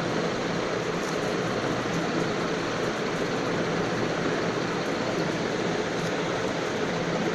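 Steady rushing background noise with a faint low hum underneath, unchanging throughout.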